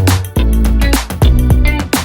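Background music: an upbeat track with a steady beat, a bass line and regular drum hits.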